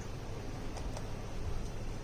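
Faint small clicks of a screwdriver working a plastic screw terminal block while a wire is fastened, a couple of them a little under a second in, over a steady low hum and hiss.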